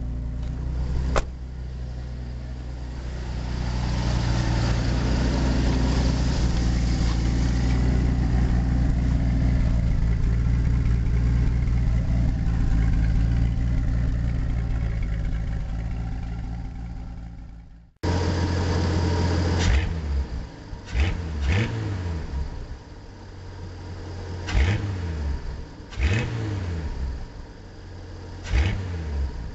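Ford 300 (4.9 L) inline-six in a 1986 F150, running through a straight-pipe exhaust with open headers. It holds a steady speed for about the first half. After a brief drop-out it is revved in a string of short, quick throttle blips.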